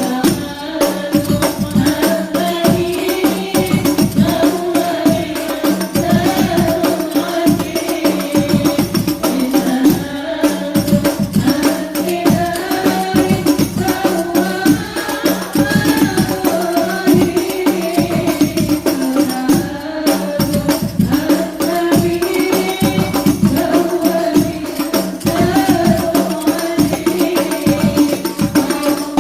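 Habsyi group singing an Islamic devotional song in unison over fast, steady rebana frame-drum beats.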